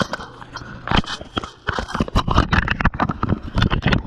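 Quick, irregular footsteps with rattling gear as an airsoft player moves on foot, a dense string of knocks and clatter close to the microphone.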